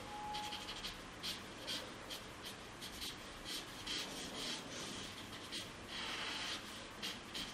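Paper blending stump (estompe) rubbing graphite into drawing paper in short, scratchy shading strokes, soft and irregular, with one longer rub about six seconds in.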